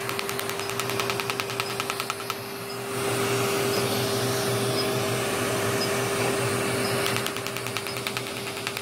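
Er:YAG resurfacing laser firing on facial skin: a fast, even train of snapping clicks that stops about two and a half seconds in and starts again near the end. Under it runs the steady hum and rush of air of the laser equipment, louder in the middle.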